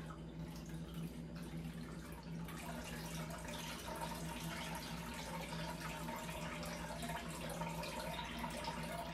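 Juice trickling and dripping from a cloth straining bag of blended pineapple and cucumber into a metal bowl, over a steady low hum.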